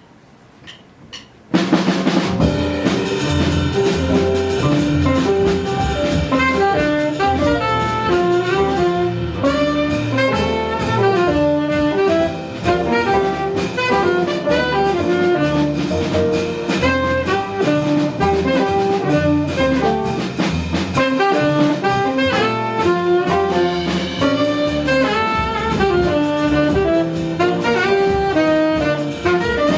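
Live jazz band starting up abruptly about a second and a half in, with a saxophone melody over piano, bass and drum kit, after a few faint knocks.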